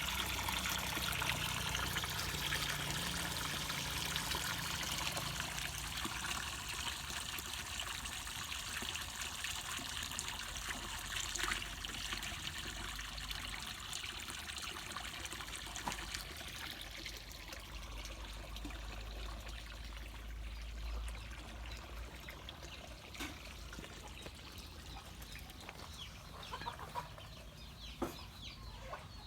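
Water trickling and splashing steadily, fading away over the second half. Chickens cluck faintly near the end.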